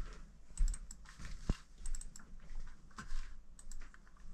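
Irregular light clicks and taps, a few a second, with one sharper knock about a second and a half in.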